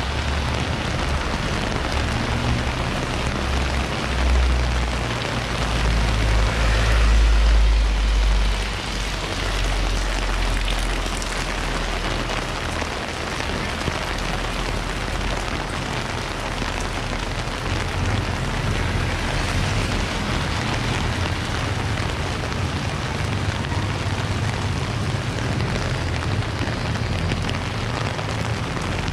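Steady rain falling on a wet street and pavement: a constant, even hiss. A low rumble swells about five to nine seconds in, then eases.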